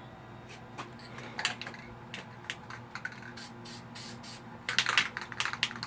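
Irregular light clicks and crackles, growing thicker and louder about five seconds in, over a faint steady hum.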